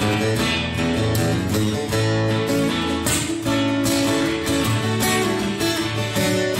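Instrumental break in a live folk song: acoustic guitar strumming a steady rhythm under sustained melody notes, with no singing.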